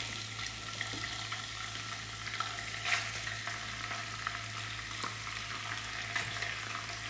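Diced raw chicken frying in hot coconut oil in a pan: a steady sizzle with scattered small crackles, one sharper crackle about three seconds in.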